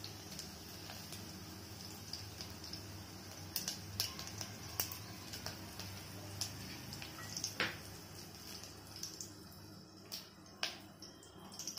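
Hot oil in a steel pot crackling with sparse sharp pops as dry red chillies and crushed small onions fry for a tempering. A faint steady hum runs underneath.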